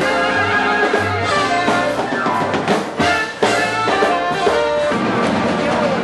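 Live band music with sustained horn lines over drums, heard through a club's open doorway. About three seconds in the music drops out briefly and comes back with a loud hit.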